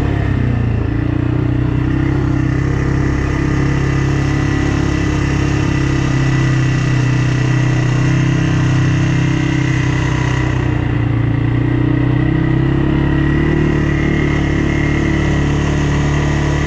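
ATV engine running at a steady, nearly constant pitch, with a brief drop in revs just after the start.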